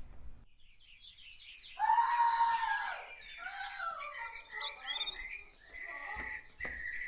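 A woman's short, high-pitched scream about two seconds in, the loudest sound here, over birds chirping with repeated short chirps.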